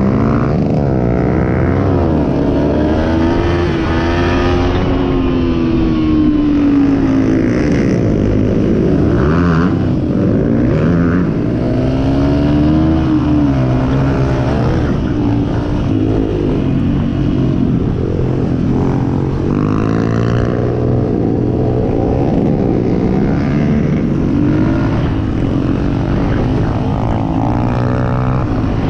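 ATV engine running under way, its pitch rising and falling again and again as the throttle is opened and eased off.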